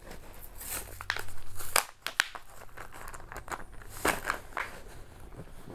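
Plastic hardware bag crinkling and rustling as it is handled to get screws out, with a few sharper crackles.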